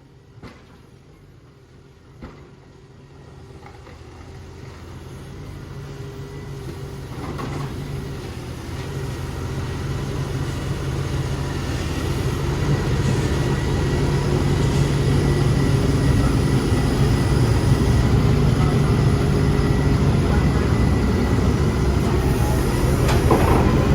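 Diesel engine of a Volvo excavator running, growing steadily louder over roughly the first dozen seconds and then holding steady. Two short clicks come just before the engine sound builds.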